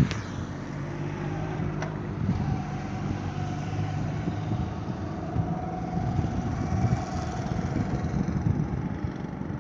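Hino diesel truck's engine running with a steady low drone. A thin higher whine rides over it from a couple of seconds in until near the end.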